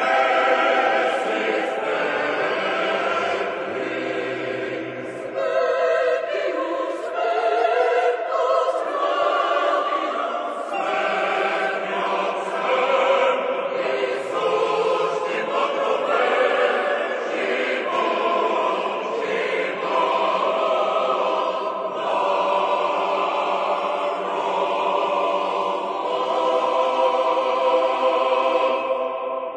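Choral music: a choir singing slow, sustained chords.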